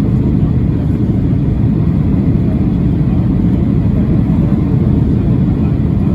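Steady low rumble of airflow and engine noise inside the cabin of a Boeing 737-800 during descent.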